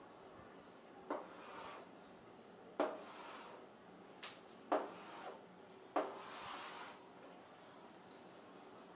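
Chalk on a chalkboard being drawn in long ruled lines: four strokes, each starting with a sharp tap of the chalk and then a scraping drag of about half a second.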